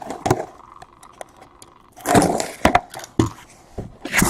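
Trading-card boxes and packaging being handled on a table: several sharp clicks and knocks, with a brief rustle about two seconds in.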